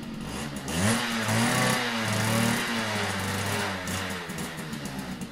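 Motorcycle engine idling, then revved up about a second in, held raised with two swells in pitch, and settling back to idle around four seconds.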